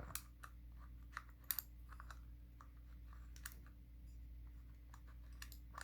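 Light, irregular clicks and taps from the aluminium pull starter and its tabs being fitted together and turned by hand, with two sharper clicks about a second and a half in. A low steady hum underneath.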